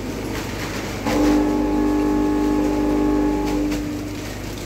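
Chips-packaging machine running with scattered knocks. About a second in, a steady horn-like tone starts and holds for nearly three seconds, louder than the machine.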